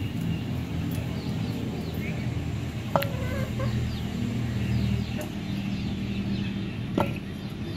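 Domestic hens clucking softly, with two sharp knocks about four seconds apart.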